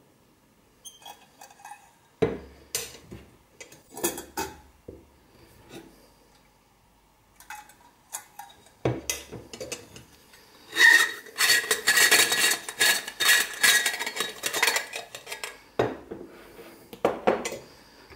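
Stainless steel moka pot being handled and taken apart: scattered metal clinks and knocks, then a few seconds of dense metallic scraping and ringing clinks about halfway through as the top is unscrewed from the boiler, and a few more knocks near the end as the funnel filter is lifted out.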